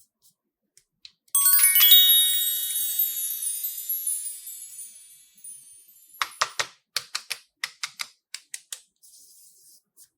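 A bright, chime-like tinkle of many high ringing notes starts suddenly and fades away over a few seconds. It is followed by a run of sharp clicks and taps.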